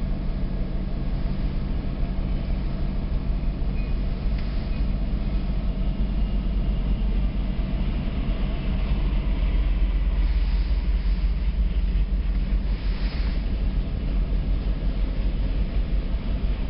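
Canadian National freight train rolling past: a diesel locomotive and then its freight cars, a steady low rumble and hum, heard from inside a car.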